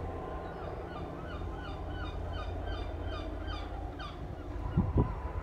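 A gull calling in a fast run of about a dozen yelping notes, about three a second, over a steady low rumble from the distant helicopter. Two sharp knocks come near the end.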